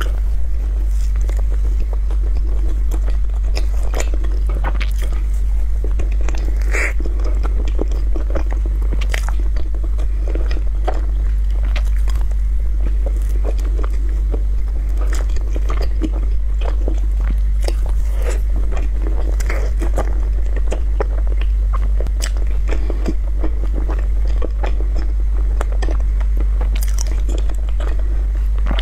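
A person biting into and chewing soft, cream-filled mochi balls: many small wet clicks and smacks of the mouth at irregular intervals, over a steady low hum.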